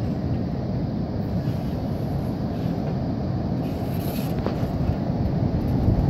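Steady low rumble of ocean surf breaking, mixed with wind buffeting the microphone.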